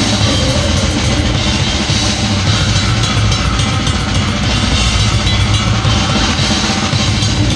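Drum kit played live with a loud grindcore band, heard close to the kit: fast, dense drumming with bass drum, snare and crashing cymbals over distorted band noise.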